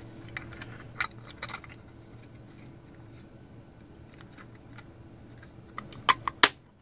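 Light clicks and taps of a small switching power supply's board and case being handled and fitted together, with a burst of sharper clicks about six seconds in as the parts snap into place. A faint steady hum runs underneath.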